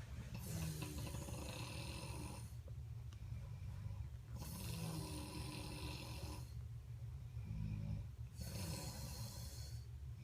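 Snoring: three long, rasping snoring breaths about four seconds apart over a steady low rumble.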